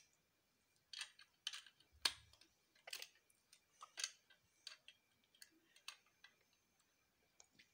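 Faint plastic Lego bricks clicking as they are handled and pressed together: about ten sharp, irregular clicks, the loudest about two seconds in.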